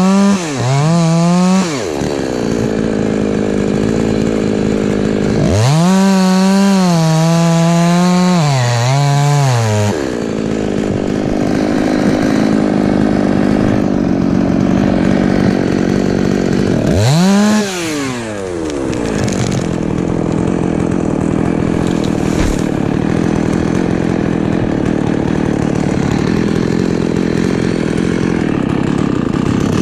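Husqvarna 254 two-stroke chainsaw revved to full throttle in three bursts, near the start, from about six to ten seconds in and briefly around seventeen seconds. Its high engine note wavers and sags as it cuts wood. Between the bursts the sound drops back to a lower, steady running.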